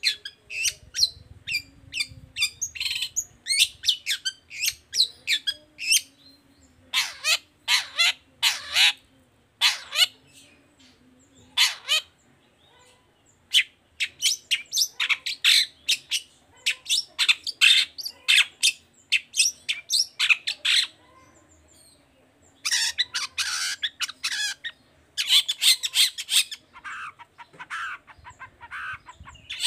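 Long-tailed shrike (cendet) calling in quick runs of harsh, scratchy notes, separated by short pauses.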